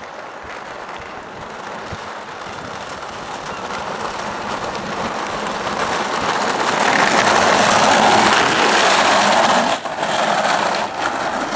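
Small hard wheels of a low go-kart rolling on a rough concrete path, a steady rolling noise that grows louder as the kart comes closer, loudest a little past the middle, with two brief sudden drops near the end.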